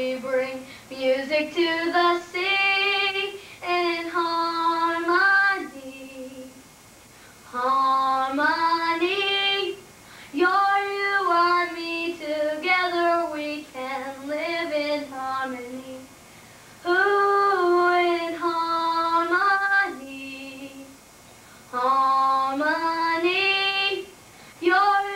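A woman singing alone, without accompaniment, in phrases of held notes with short pauses between them.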